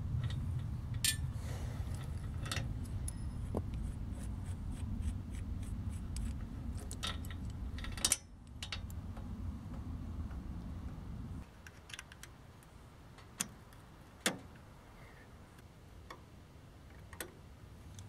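Steel roller chain clinking and jangling as it is handled by hand, with scattered sharp metallic clicks. A low rumble underneath stops about two-thirds of the way through.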